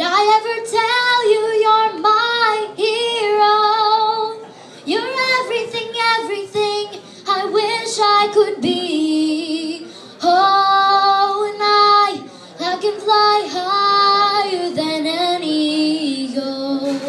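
A young girl singing a slow ballad solo into a microphone. She sings long held notes in phrases, with short pauses for breath between them.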